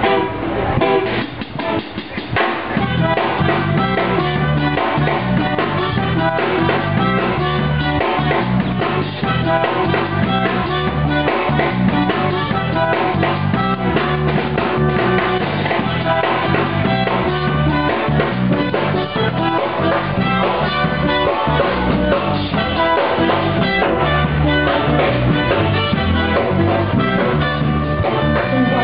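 Live band playing amplified music with a steady beat: drums, congas and guitar.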